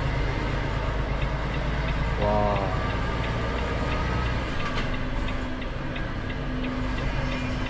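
Volvo truck's diesel engine running with a steady low rumble, heard from inside the cab as the truck moves slowly. A regular ticking of about three ticks a second runs over it.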